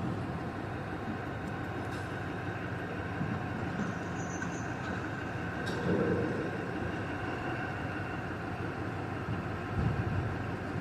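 Heavy machinery running steadily: an even mechanical hum with a faint steady whine, swelling briefly louder about six seconds in and again near ten seconds.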